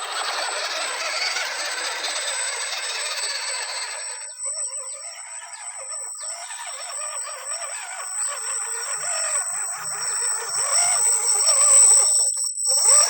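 Scale RC crawler's electric motor and drivetrain running, with a steady high whine over a rough, uneven noise.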